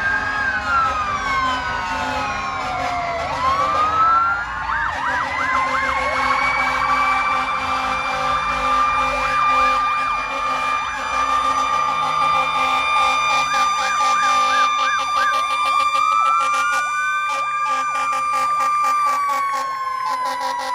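Emergency vehicle sirens sounding together, their wails rising and falling across each other, with two stretches of fast warbling yelp.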